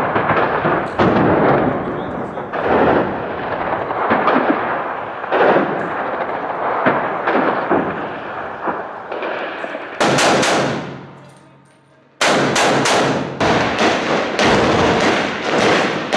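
Sustained gunfire in street fighting: repeated shots from rifles and machine guns. About eleven seconds in the firing fades away briefly, then resumes abruptly with rapid bursts of shots.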